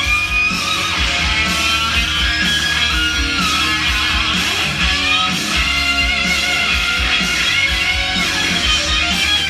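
Rock music with electric guitar and a steady drum beat, playing back from a vinyl record on a turntable.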